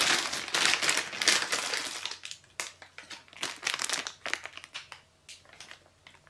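Clear plastic bag crinkling as it is lifted and handled: dense crinkling for about two seconds, then scattered crackles that thin out.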